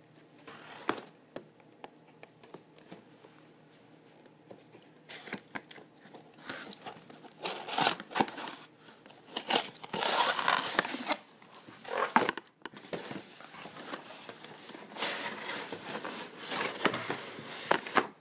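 Cardboard toy packaging being opened and a clear plastic blister tray slid out: crinkling, rustling and scraping in bursts through the second half, after a few quieter seconds with a couple of clicks.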